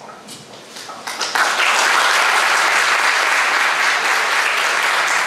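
Audience applauding: a few scattered claps, then full steady applause from about a second in.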